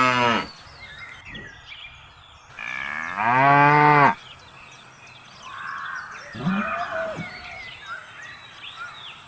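Cow mooing: the end of one moo at the start, then a long moo about three seconds in that drops in pitch as it ends, and a shorter, lower call about six and a half seconds in.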